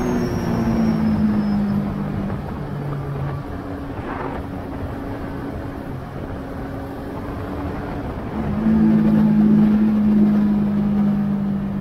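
Yamaha Tracer 900 GT's 847 cc inline-three engine heard onboard while lapping a track. It eases off near the start and runs quieter through a corner. About eight and a half seconds in it opens up loud again.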